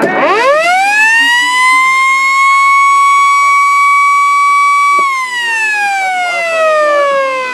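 Electromechanical siren winding up quickly to a high steady wail, holding it for about four seconds, then winding down in a long falling glide as the rotor coasts.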